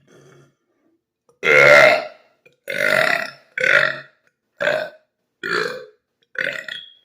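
A man burping six times in a row, the first burp the loudest and longest, the others following about a second apart. The burps are brought up by the cold, carbonated Sprite he has drunk.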